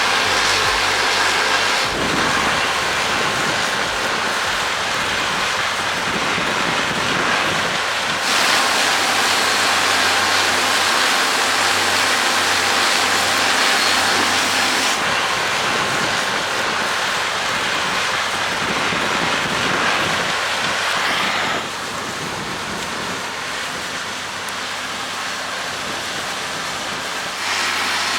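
Case IH AF10 combine running while harvesting wheat: a loud, steady machine noise from its engine and threshing, changing abruptly in tone and level several times.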